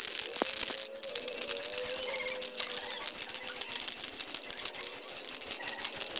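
A brief hiss of aerosol spray paint for about the first second, then a fast, even run of clicks over faint background music.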